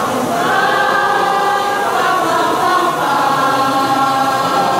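School choir of girls' and boys' voices singing long held chords, moving to a new chord every second or so.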